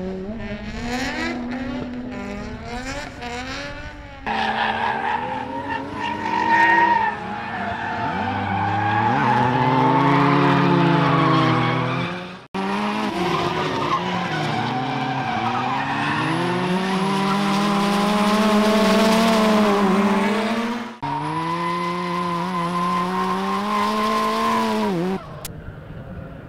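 Mazda RX-7 FC's rotary engine revving hard while drifting, its pitch wavering up and down with the throttle, over tyre squeal and skidding. The sound is several separate runs, cutting off suddenly a few times.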